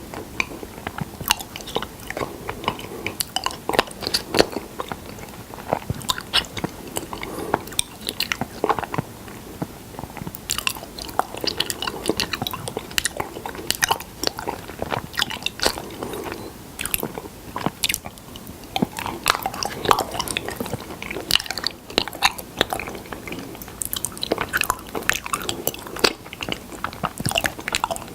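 Close-miked chewing and biting of honey: a dense, irregular run of wet, sticky clicks and small crunches.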